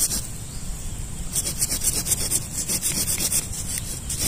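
Rapid back-and-forth scraping strokes of a hand tool cutting and rasping through lantana roots and soil while the stump is dug out. A quick run of strokes fills the middle, with another short run near the end.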